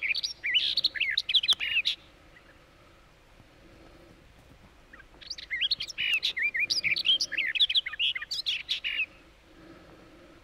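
Barred warbler (Sylvia nisoria) singing: two bouts of fast, scratchy warbling, the first breaking off about two seconds in and the second starting about five seconds in and lasting about four seconds.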